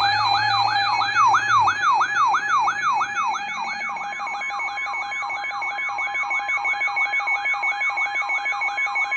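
Emergency alert tone: a whooping tone sweeping down and up about three times a second over steady high tones, sounding before the spoken warning.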